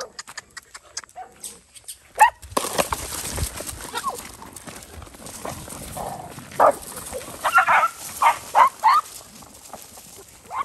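Stray dogs squabbling over food, giving a quick run of short yelps and snarls in the second half, over a steady noise.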